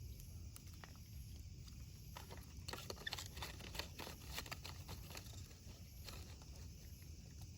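Wood bonfire crackling: scattered sharp pops and snaps, busiest in the middle few seconds, over a low steady rumble.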